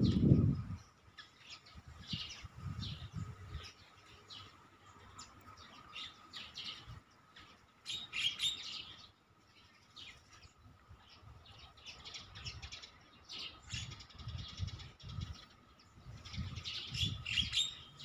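Birds chirping in quick, repeated high twitters, busiest about eight seconds in and again near the end. A brief low rumble at the very start is the loudest sound.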